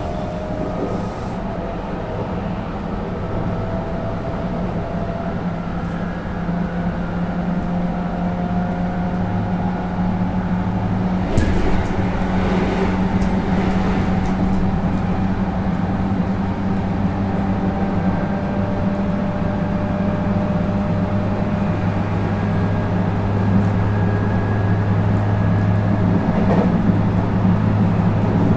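Running noise inside a JR 221 series electric train's motor car at speed: the MT64 traction motors hum and whine over the rumble of wheels on rail, growing gradually louder. A brief rattle comes about eleven seconds in.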